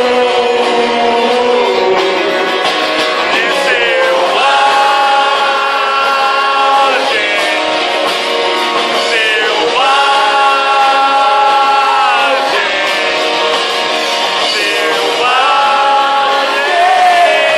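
Live rock band playing, a voice singing long held notes over guitars and drums, with little bass in the sound.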